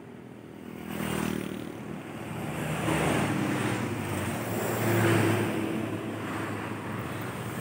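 Road traffic passing close by: motor scooters go past one after another, then a large intercity coach passes, its diesel engine drone loudest about five seconds in.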